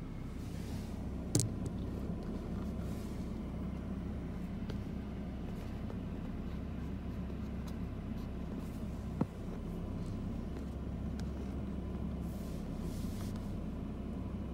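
Steady low background rumble with a faint hum, broken by two sharp clicks, one about a second and a half in and one about nine seconds in.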